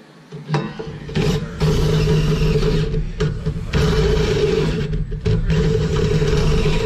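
Cordless drill with a greased step bit running hard under load, boring into a pickup's front bumper, with a steady motor hum and grinding. It starts about half a second in and stops briefly three or four times as the trigger is let off. The bit is struggling to cut through, which the owner puts down to a worn-out step bit.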